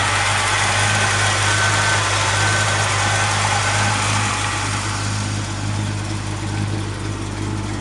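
Rebuilt 350 Chevrolet small-block V8 with a Holley four-barrel carburettor and headers, idling steadily. It gets slightly quieter in the second half.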